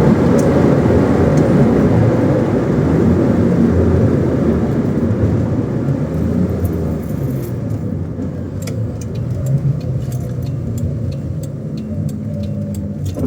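1987 BMW E30 325i's 2.5-litre straight-six car running, a steady dense rumble that eases off slowly over the second half. Scattered light clicks join it in the later seconds.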